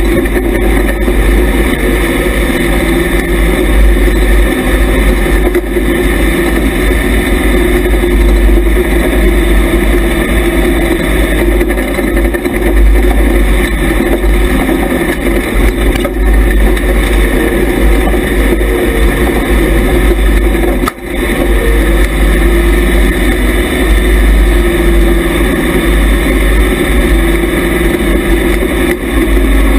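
IMCA Hobby Stock race car's engine running hard at racing speed, heard from inside the car, its pitch rising and falling through the turns over a heavy low rumble. The sound dips briefly about two-thirds of the way through.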